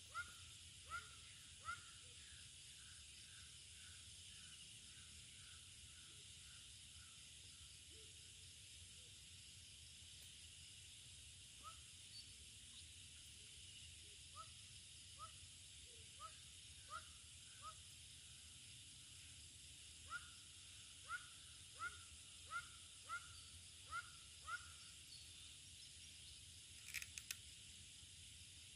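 Quiet dusk ambience: a steady, faint, high drone of insects with bouts of short, sharp, falling calls from an unseen animal, a little faster than one a second. A couple of faint clicks near the end.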